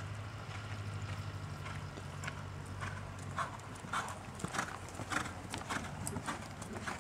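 Hoofbeats of a horse loping on a sand arena: soft at first, then sharper and louder as the horse passes close by, in uneven groups of beats. A steady low hum lies under the first few seconds.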